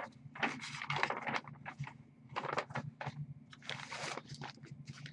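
Handwriting: a string of short, scratchy pen strokes on a writing surface, irregular in spacing, over a faint steady low hum.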